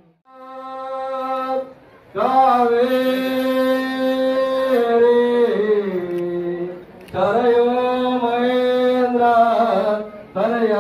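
Music: a song with a singing voice holding long, drawn-out notes in phrases of a few seconds each, broken by short pauses.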